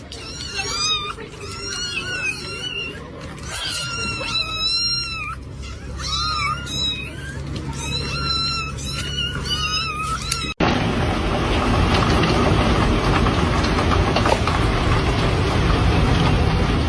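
Kitten meowing over and over in short, high calls for about ten seconds. Then a sudden cut to a louder, steady rushing noise.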